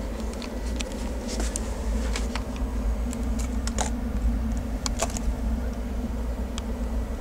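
Indian Railways passenger coach in motion: a steady low rumble of wheels on the track, with scattered light rattles and clicks from the coach.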